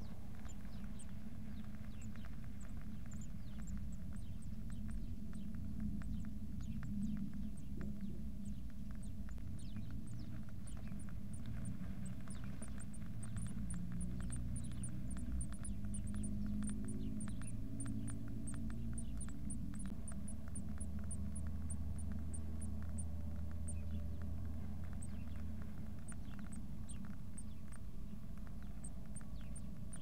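Blue tit nestlings in a nest box peeping: rapid, very high, thin chirps, densest in the middle and thinning near the end, with light scratching and rustling as they shift in the nest lining. A low steady hum runs underneath.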